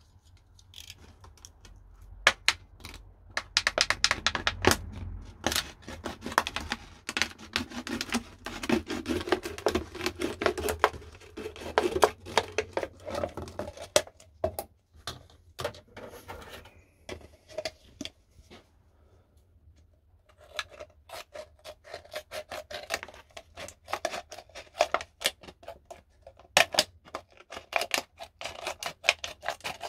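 Scissors cutting through a thin plastic drinks bottle: a run of crackling snips with the plastic crinkling and squeaking as it is handled. There is a quieter pause of a few seconds about halfway, then the snipping starts again.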